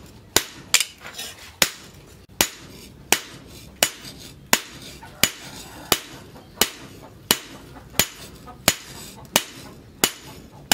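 Hand hammer forging a red-hot leaf-spring steel cleaver blank on a small steel post anvil: sharp metallic blows at a steady rhythm, a little under one and a half a second, each with a short ring.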